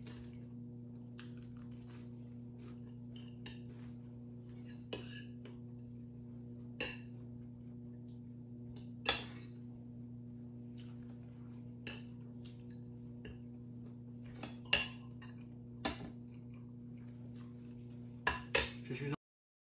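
A metal fork and knife clink and scrape against a plate while someone eats. There are a dozen or so scattered sharp clinks, the loudest about nine and fifteen seconds in, and a quick run of them near the end, all over a steady low electrical hum. The sound cuts off just before the end.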